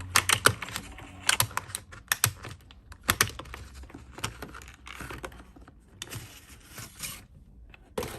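Quick sharp taps and clicks, then papery rustling, as a spiral planner and its packaging are handled; the taps are densest in the first few seconds.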